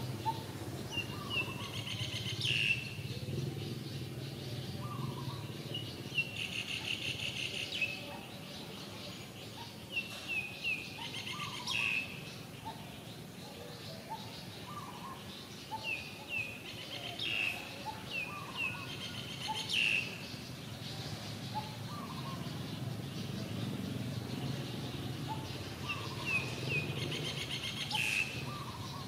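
A bird singing, repeating one phrase about every four to five seconds: a run of short, high, falling chirps that ends in a quick buzzy trill.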